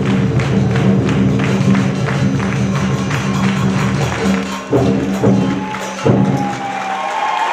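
Chinese lion dance percussion: drum and crash cymbals playing a fast, steady beat over a ringing low tone. It ends with three loud separate strikes about five to six seconds in. Applause starts near the end.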